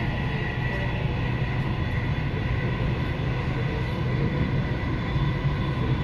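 Dubai Metro train running at speed, heard from inside the carriage: a steady low rumble with a constant high whine.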